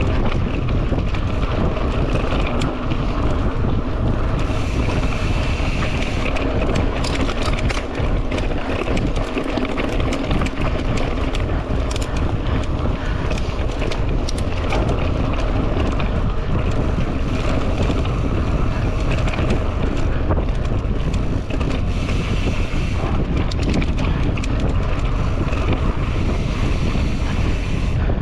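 Wind buffeting the microphone of a camera on a mountain bike ridden fast down a dirt trail, with steady tyre noise and frequent clattering and rattling of the bike over bumps.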